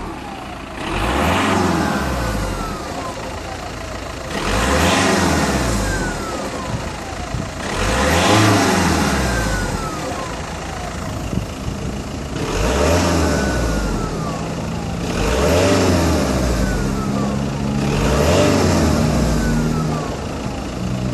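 Seat Leon Mk2 2.0 TDI PD140 diesel engine revved about six times. After each rev a high whistle falls in pitch as the turbo spins down. This is the turbo siren, which the owner takes for a failing turbocharger bearing.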